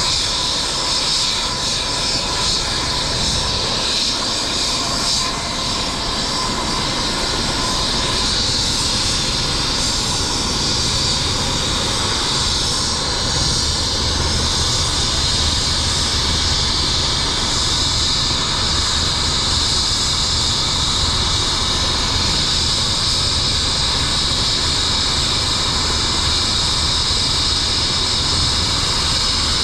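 Eurocopter EC135 P2+ helicopter's twin turboshaft engines running on the ground ahead of takeoff: a steady, loud high turbine whine over a low rumble. A thin tone in the sound fades out about eight seconds in.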